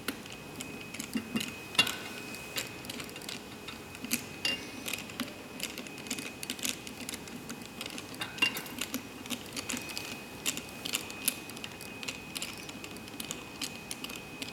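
Irregular small metal clicks and taps as a screwdriver turns out a small screw from the heat press handle's sensor bracket while the nut behind it is held, with a couple of sharper knocks about 2 seconds and 8 seconds in.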